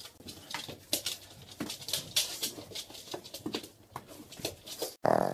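A pug's quick, irregular clicks and taps, several a second, as it paws at a man's legs and licks his face.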